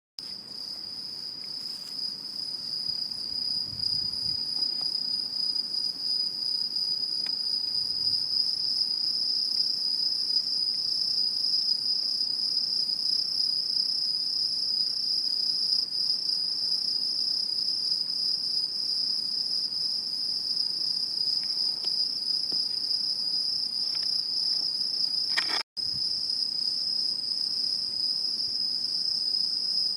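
Autumn insects calling: one steady, unbroken high-pitched trill at a single pitch, fading in over the first few seconds and cutting out for an instant near the end.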